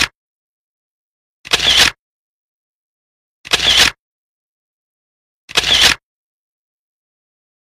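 Camera shutter sound effect, three identical clicks about two seconds apart, with silence between.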